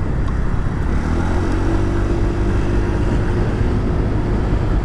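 Riding sound on a Honda motorcycle: the engine running at a steady pace under a dense rumble of wind on the microphone, with a steady droning tone coming in about a second in.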